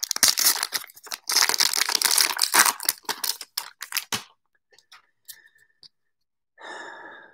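A baseball card pack's crinkly wrapper being torn open and crumpled by hand, a dense crackling rustle that stops about four seconds in. A few faint ticks follow, then a short soft rustle near the end as the stack of cards is handled.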